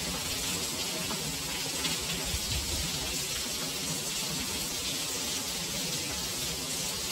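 Heavy rain pouring steadily onto wet paving and buildings, an even, unbroken hiss.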